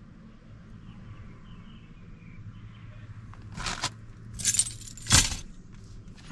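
Three short bursts of clattering or rattling from small hard objects being handled, the last the loudest, over a low steady hum.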